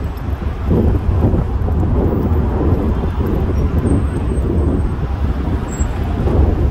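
Traffic noise from the surrounding road, under a heavy low rumble of wind on the microphone.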